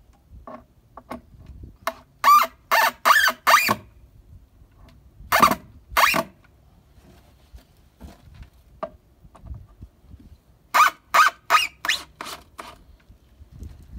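Cordless drill driving screws into the lumber of a wooden raised-bed frame, run in short trigger bursts: four quick ones about two seconds in, two more around five to six seconds, and a run of about six near the end.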